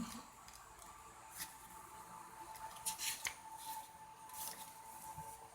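Faint, short rustles of paper or card being handled, a few at a time, such as tarot cards being moved or a guidebook's pages being turned, over a faint steady hum.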